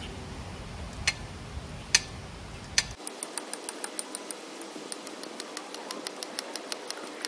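Foot-pumped wheel dolly clicking as its pedal is worked around a car's tire, squeezing in on the wheel to lift it: three sharp clicks about a second apart, then an even run of about four clicks a second.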